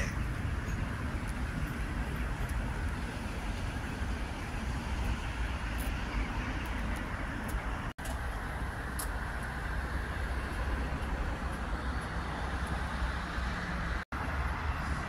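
Steady hum of road traffic, cars passing on a nearby road, with a low rumble underneath. The sound drops out for a split second twice, once around the middle and once near the end.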